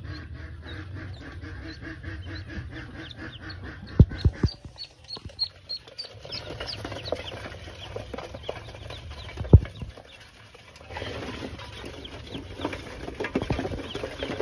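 Many Pekin ducklings peeping, short high chirps that grow denser and busier in the last few seconds. Two sharp thumps stand out, about four seconds in and again near the middle.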